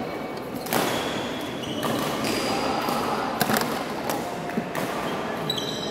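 Badminton rally: four sharp racket hits on the shuttlecock, roughly one to one and a half seconds apart, the third the loudest. Short high squeaks of court shoes on the floor come between the hits.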